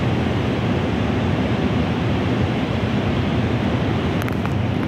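Wind buffeting the phone's microphone on an open high-rise balcony: a steady, loud, low rushing rumble with no pauses.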